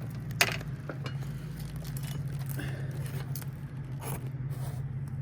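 Scattered scrapes and small taps of a roofing pry tool and hands working at old, brittle asphalt shingles to get at the nails, the sharpest about half a second in. A steady low hum runs underneath.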